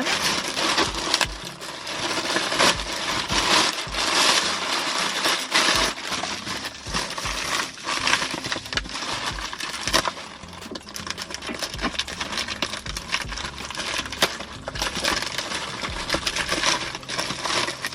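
A parcel being unwrapped by hand: continuous rustling and crinkling of packaging, with many sharp crackles.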